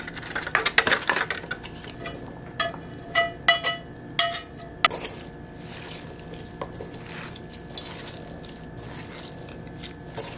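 Pieces of canned biscuit dough dropped into a stainless steel mixing bowl, then a hand squishing and kneading the dough with crumbled sausage in the bowl. Several knocks against the steel bowl, some leaving brief metallic rings.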